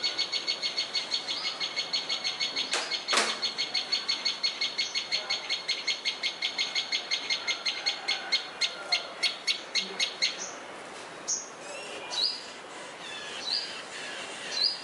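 Small birds chirping: a fast, even run of high chirps, about five a second, for about ten seconds, then slowing to a few scattered calls. A sharp knock sounds about three seconds in.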